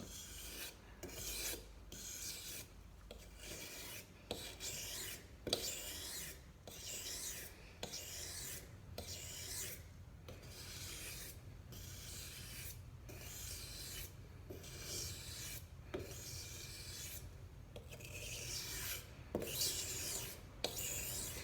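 Knife blade stroked repeatedly along a wet sharpening stone, a dry rasping hiss about once a second with a light click as each stroke starts.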